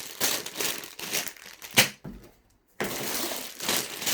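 Plastic Lego parts bags crinkling and rustling as they are handled, with one sharp, louder crackle a little under two seconds in, then a brief drop to silence before the crinkling starts again.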